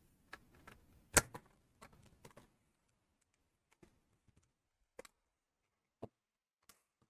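Plastic housing of a VTech RM7764HD baby monitor parent unit being handled and snapped together: a cluster of light clicks with one sharp click about a second in, then a few single taps of plastic on the bench.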